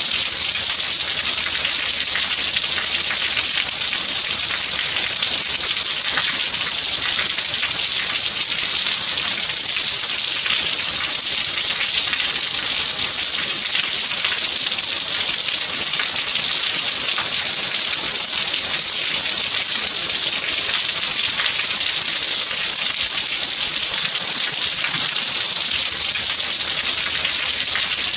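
Steady rain: a dense, even hiss of falling water that holds level throughout.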